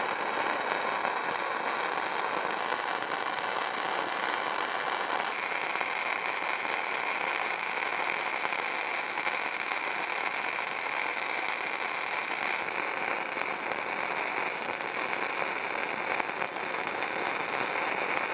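Self-shielded flux-cored arc welding with .045 wire: the arc crackles steadily and continuously as the gun is dragged along a horizontal fillet weld at about 18 volts.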